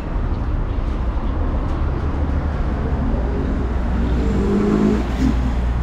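Street traffic: a steady low rumble of vehicle engines, with one engine note rising and falling about four seconds in.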